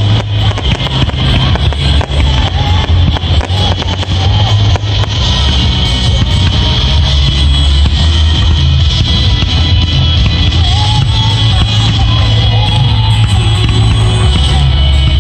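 Loud music with a heavy bass, recorded so loud that it distorts, with fireworks shells bursting through it in a rapid run of bangs over the first few seconds.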